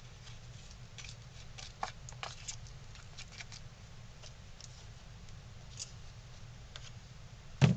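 Wet wood putty stirred in a small plastic tub with a stick: irregular light scrapes and clicks against the tub, with one louder knock near the end.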